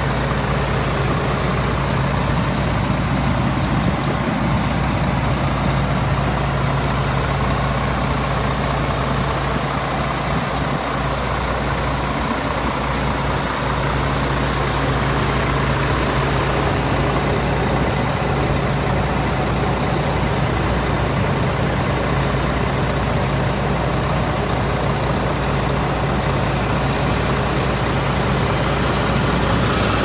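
MAN TGS 35.430's diesel engine idling steadily, a constant low hum.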